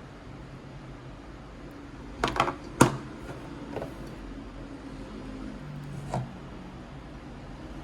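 A few sharp clicks and knocks of small objects being handled: a quick cluster about two and a half seconds in, the loudest at about three seconds, then single fainter taps near four and six seconds, over a steady low room hum.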